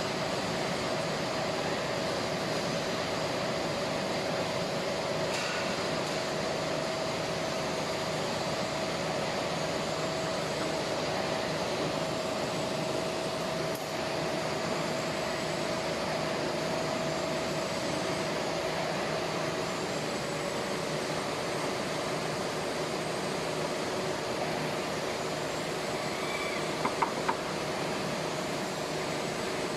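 Steady machinery hum with a constant tone that fades out about two-thirds of the way through, and a few short sharp clicks near the end.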